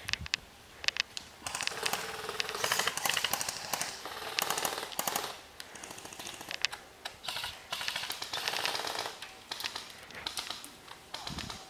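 Airsoft guns firing several rapid full-auto bursts of clicking shots, with scattered single shots between them.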